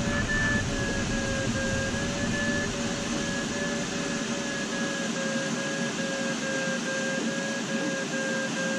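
Glider's audio variometer beeping in a quick, even rhythm at a steady pitch, the sound it makes while the glider is climbing in lift. Under it runs steady airflow rush in the cockpit.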